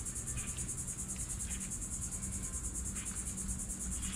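Steady, high-pitched chorus of insects with a fast, even pulse.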